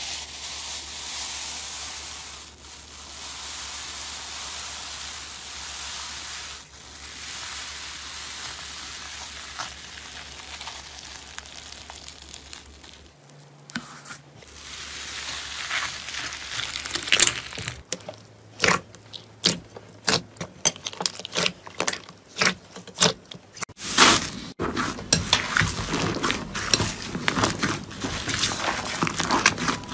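Slime being squished and worked by hand. For the first dozen seconds it makes a steady, crackly hiss. After a short break it turns to a quickening string of sharp crackling clicks, densest in the last few seconds.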